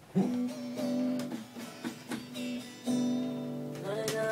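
Acoustic guitar being strummed: a handful of separate strums, each chord left to ring.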